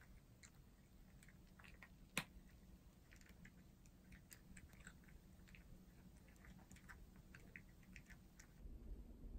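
Cat eating dry kibble from a bowl: faint, irregular small crunches as it chews, with one sharper click about two seconds in.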